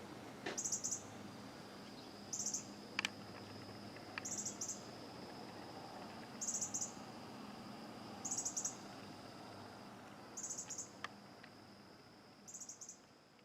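Short, high, rapidly pulsed chirps repeat about every two seconds over a steady high-pitched whine, with a few faint clicks; everything fades away near the end.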